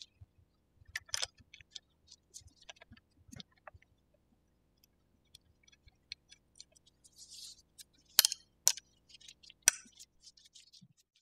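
Scattered small clicks and taps of metal parts being handled as a hydraulic disc brake caliper is fitted onto the fork's brake mount and a hex key is set to its mounting bolt. There is a brief scratchy rustle about seven seconds in, and the sharpest clicks come about eight to ten seconds in.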